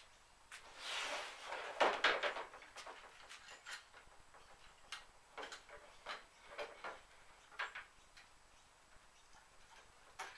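Irregular light clicks and knocks as wooden easel parts and hand tools are handled during assembly, with a brief rustling swish about a second in.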